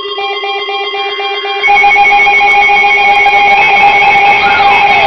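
Electronic alarm tones from weather alert radios sounding for an incoming warning. A pulsed beep runs about five times a second over steady tones. At about one and a half seconds a much louder alarm cuts in, and a second or two later a siren-like wail starts rising and falling.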